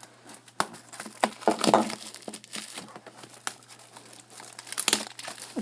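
Plastic wrapping on a box of baseball cards being torn and crinkled in irregular crackling bursts.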